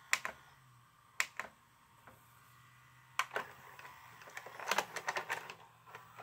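Sony SLV-D350P VCR mechanism, cover off, clicking as a front-panel button is pressed, then a few separate sharp clicks and, near the end, a quick run of mechanical clicks and clatter as the transport unloads the VHS tape for ejection.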